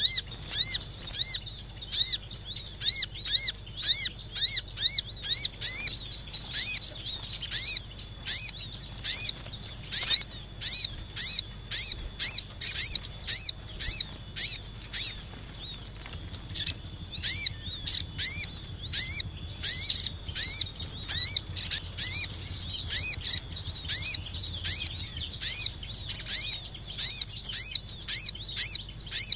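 Small songbirds chirping in a fast, unbroken series of short high notes, several a second, as in a recording played as a bird-trapping lure call.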